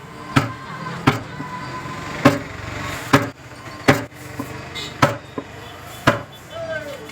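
Mallet blows on wood during hand-cut butterfly-key joinery, about seven sharp strikes at an uneven pace of roughly one a second.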